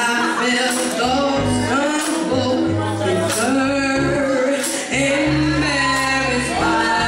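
A woman singing into a microphone with a live band: keyboard bass and chords under her voice, with congas and a rack of mounted tambourines struck in time.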